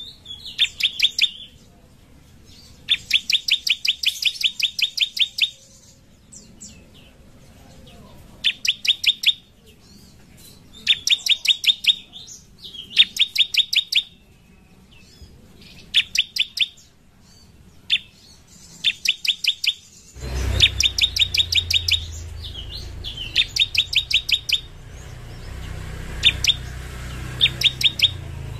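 Bar-winged prinia (ciblek) singing: bursts of fast, sharp repeated high notes, each burst lasting one to two seconds and coming every couple of seconds. About two-thirds of the way through, a low steady rumble joins in underneath.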